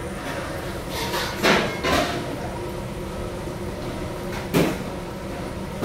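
Kitchen clatter over a steady background hum: sharp knocks about a second and a half in, again at two seconds, and a louder one near four and a half seconds.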